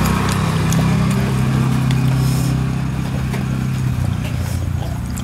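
A steady low engine-like hum, as of a motor idling, with a few light clicks over it.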